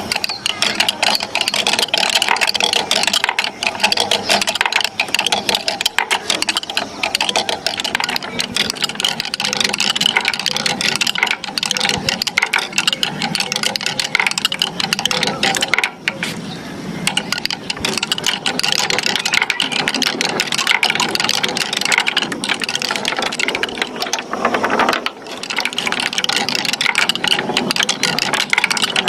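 Many marbles rolling and clattering down a wooden marble run slope: a continuous rattle of rapid clicks, with a few brief lulls.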